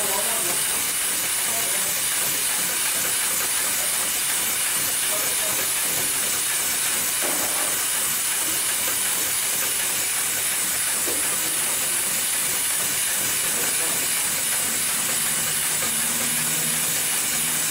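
Automatic buffing-wheel sewing machine running, stitching through stacked cotton cloth layers, heard under a steady hiss. A faint low hum comes in near the end.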